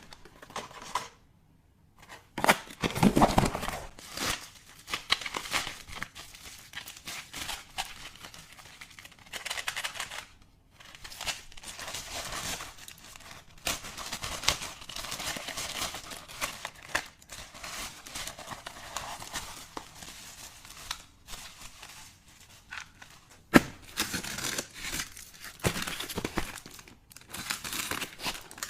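Crinkly packaging being unwrapped and torn open by hand: irregular crinkling and tearing, with a sharp click about two-thirds of the way through.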